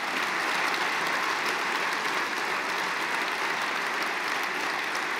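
Large seated audience applauding steadily, a dense even clapping from hundreds of hands.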